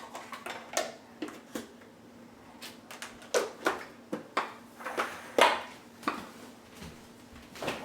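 Irregular knocks, clicks and light clatter of kitchen bowls, containers and utensils being handled and set down, a dozen or so sharp hits, some with a short ring.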